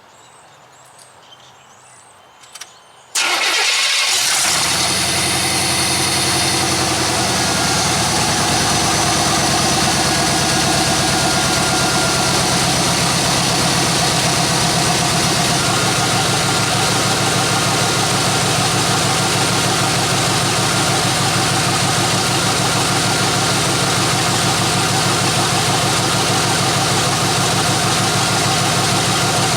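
A 1993 Chevrolet C1500's throttle-body-injected small-block V8 fires up suddenly about three seconds in and idles loudly and steadily through open headers with no exhaust fitted, its note shifting slightly about halfway through.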